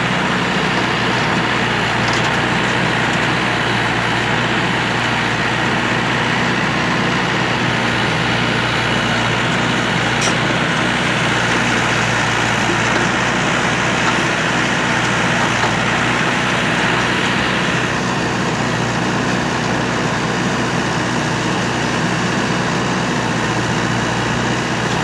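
Mahindra 475 tractor's four-cylinder diesel engine running steadily, driving the hydraulics of a rear-mounted backhoe as it digs and lifts soil.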